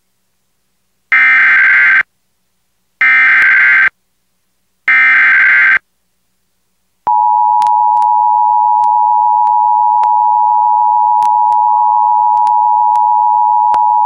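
Emergency Alert System broadcast: three short bursts of shrill digital SAME header tones about two seconds apart. After a pause, about halfway through, the steady two-tone EAS attention signal (853 and 960 Hz) starts and keeps sounding.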